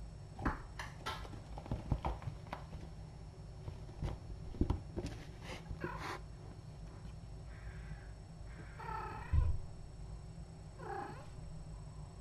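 Cat vocalizing: three separate drawn-out meow-like calls in the second half, the middle one the loudest and with a thump. Before them comes a scatter of light knocks and thumps.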